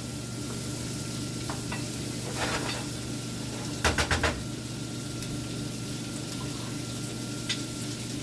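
Food sizzling in a hot frying pan, with a few short clinks and scrapes of a utensil stirring it, a small burst of them about four seconds in, over a steady low hum.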